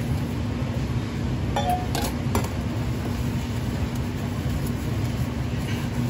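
Steady low hum of a commercial kitchen's ventilation fan, with a few light clinks of stainless steel pans and bowls being handled about two seconds in.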